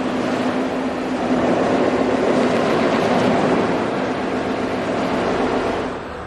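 Large polishing wheel of an automated polishing machine spinning against a zinc alloy part: a steady hum with a dense grinding hiss, which drops off shortly before the end.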